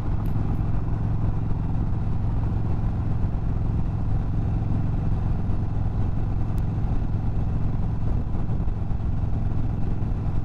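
2022 Indian Chief Bobber Dark Horse's Thunderstroke 116 V-twin running steadily at cruising speed on its stock exhaust, with wind and road noise.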